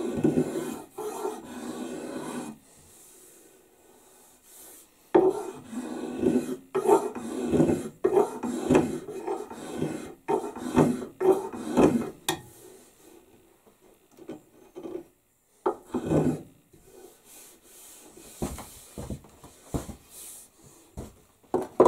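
Hand strokes scraping along a wooden axe handle as it is thinned down: a short run of back-and-forth strokes, a pause of a couple of seconds, then a longer run that stops about halfway through. After that only scattered light knocks and handling sounds.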